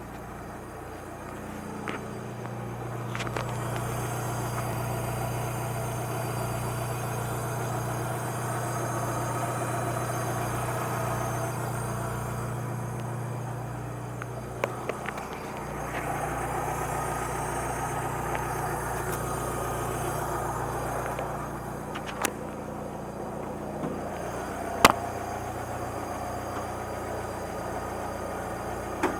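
Alfa Romeo 146 ti's 2.0 Twin Spark four-cylinder engine running with a strange noise. The noise appears when the engine is restarted before it has fully cooled and goes away at normal operating temperature; the owner has already found the timing belt, tensioners and bearings sound. A steady engine hum changes about halfway through, with a few sharp clicks, the loudest near the end.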